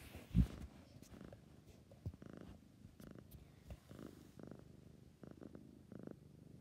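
Domestic cat purring close to the microphone, the purr coming in repeated stretches of half a second to a second as it breathes in and out. A louder thump about half a second in.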